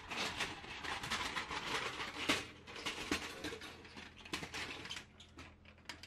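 Thin steel plate panels of a knock-down mini charcoal grill clattering and scraping against each other as they are handled and pulled apart, with many quick metallic clicks, busiest in the first half.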